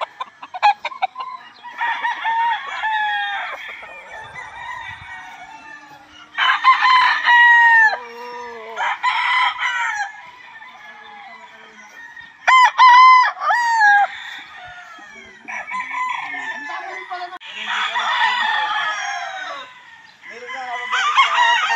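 Several gamecocks crowing one after another, crows overlapping from different birds, with a very loud close crow about two-thirds of the way through.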